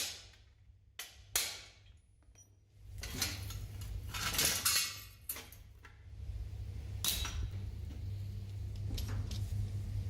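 Metal parts and tools clinking and knocking in a workshop: a few sharp clinks, a longer noisy stretch of handling in the middle, then another sharp clink, over a low steady hum.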